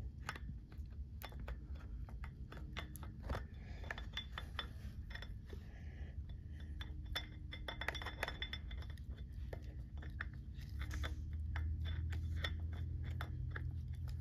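Scattered light clicks and taps of gloved hands working a tube of silicone sealant around an aircraft engine's crankshaft nose seal, over a steady low hum that grows louder in the last few seconds.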